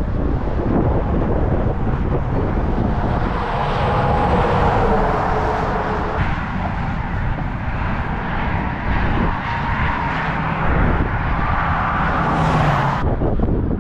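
Strong wind buffeting the microphone, a heavy low rumble throughout. A louder rushing sound with a faint humming tone joins it a few seconds in and cuts off suddenly near the end.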